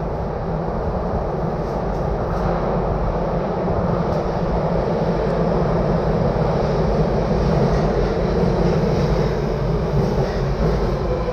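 Nagoya Municipal Subway 2000 series train pulling into an underground station, its rumble growing louder as it comes out of the tunnel and along the platform. A falling whine sets in near the end as it slows.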